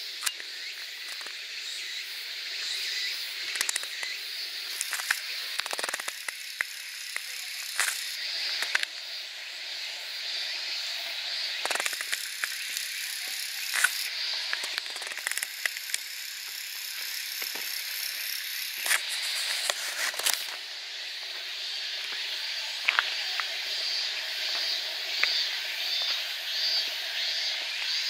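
Steady high-pitched insect chorus with a shrill upper layer that swells twice in the middle, and scattered small clicks and taps throughout.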